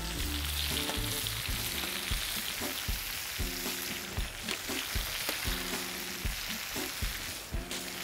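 Potatoes and mushrooms sizzling steadily in a frying pan on a grill, with a few light clicks. Background music with low held chords plays underneath.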